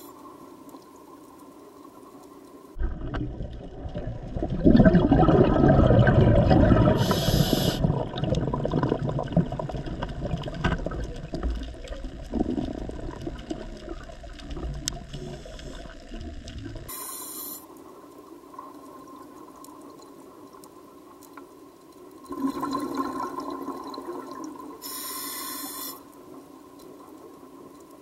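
Scuba diver's breathing through a regulator, heard underwater: two long runs of exhaled bubbles bubbling past the camera, the first starting about 3 s in and lasting well over ten seconds, the second shorter, about 22 s in. Short hisses of inhaling through the regulator come between them.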